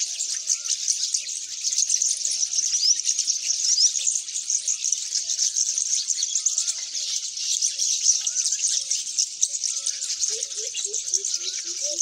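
A morning chorus of many small birds chirping densely and without a break, with short wavering whistles and low warbling calls underneath. About ten seconds in, a quick run of low repeated notes starts.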